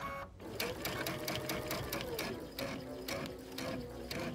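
Sewing machine with an open-toe walking foot stitching slowly through quilt layers: a quick, even run of needle clicks over the running motor.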